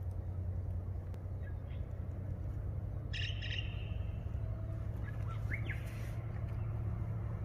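Birds chirping in short calls over a steady low rumble that slowly grows louder: the diesel locomotives of an approaching freight train, heard from a distance.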